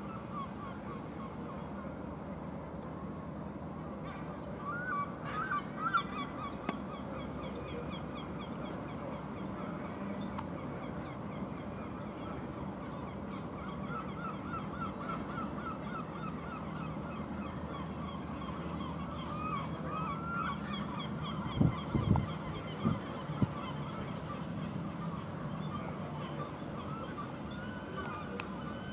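Many birds giving short calls over and over in an ongoing chorus, over a low steady hum. A few low thumps come about three-quarters of the way through.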